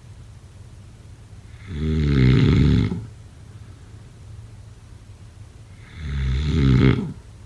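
A person snoring: two loud snores about four seconds apart, each lasting about a second, the first about two seconds in and the second near the end.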